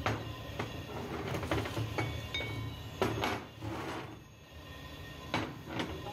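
Steel parts of a truck universal joint, the yoke and its cross, clinking and knocking against each other and the steel workbench as they are handled. The strikes are irregular, about ten in six seconds, some ringing briefly.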